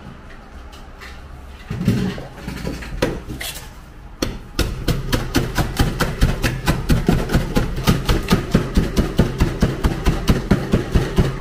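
Fruit tea being made by hand: a few scattered knocks and clatters of cups and utensils, then, from about four and a half seconds in, a steady rhythmic pounding of about four strokes a second.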